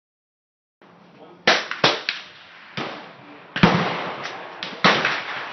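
Mossberg 590A1 12-gauge pump-action shotgun firing outdoors: three loud reports, each followed by a ringing decay, with several smaller sharp cracks between them.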